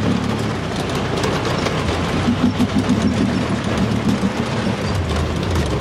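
Off-road vehicle engine running steadily while driving over rough dirt, with a rushing noise and frequent rattling clicks.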